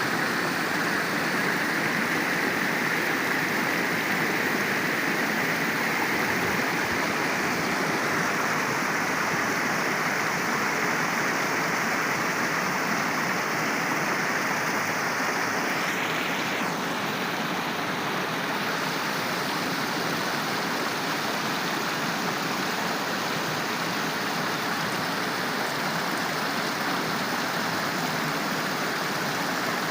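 Waterfall: a steady rush of falling water, its tone shifting slightly a little over halfway through.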